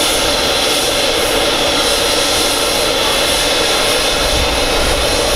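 Boeing 737-200's Pratt & Whitney JT8D turbofan engines running at idle: a steady jet rush with a high whine held at one pitch.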